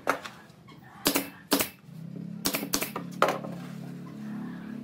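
Pneumatic brad nailer firing about six sharp shots into pine boards at uneven intervals, with a steady low hum underneath from about halfway.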